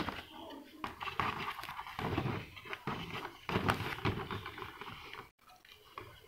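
Fingertip rubbing over the clear-coated plastic body shell of a model car, polishing out small grit bumps in the gloss coat. The rubbing comes in short noisy strokes, with a knock as the shell is handled right at the start.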